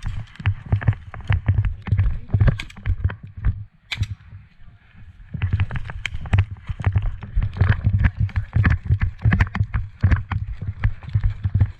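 Quick, heavy footfalls of someone running, with the rattle of gear close to the microphone, pausing briefly about four seconds in before starting up again.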